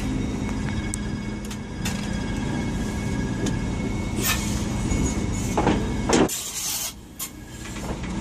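A train's engine running with a steady low hum, with a few clicks and knocks. The hum drops away for about a second just after six seconds in, then returns.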